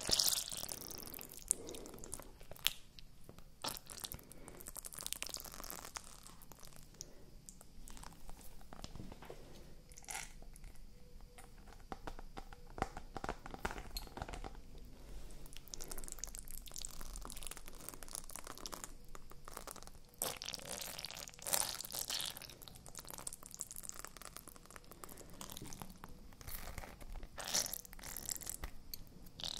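Ice cubes in a flexible silicone honeycomb ice-cube tray being squeezed and bent close to the microphones: irregular crunching and crackling of the ice, with sharp clicks.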